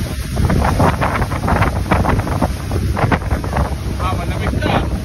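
Wind buffeting the microphone aboard a small boat under way across open water, over a steady low rumble and short splashes of water.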